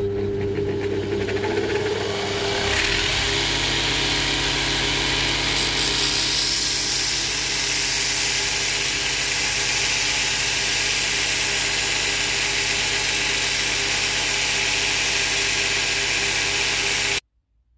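Bench belt sander running, its motor humming steadily; from about three seconds in a cast vice jaw is pressed against the moving belt, adding a steady grinding hiss of metal being sanded flat. The sound stops suddenly near the end.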